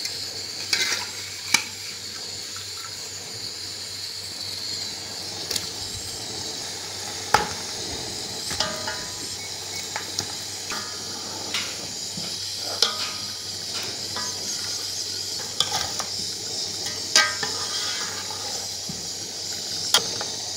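Steel ladle clinking against aluminium cooking pots as boiled mutton pieces are scooped out of their broth and dropped into a pot of tomato-onion masala: about a dozen sharp, irregular clinks over a steady high hiss.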